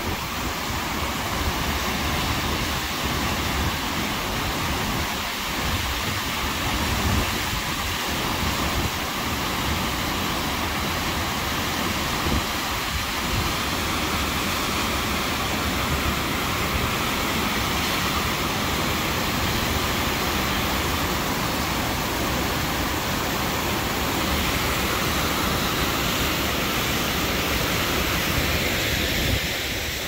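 Öxararfoss waterfall and the rapids below it rushing steadily, a dense, even roar of falling and tumbling water, with wind gusting on the microphone as an uneven low rumble underneath.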